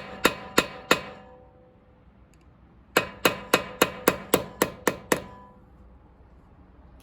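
Hammer striking metal in quick, even blows, about three a second, each with a short metallic ring. There are three blows at the start, a pause of about two seconds, then a run of about nine more.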